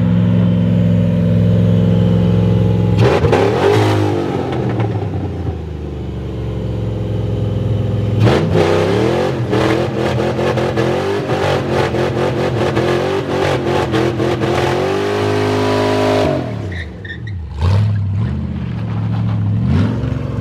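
SN95 Mustang GT's V8 revved hard during a burnout, held at high revs, then dropping and climbing again several times, with a rapid crackling rattle through the middle stretch. The engine is already running hot.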